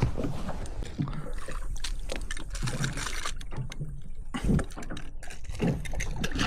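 Small fishing boat on the water: waves slapping and knocking irregularly against the hull over a steady low rumble.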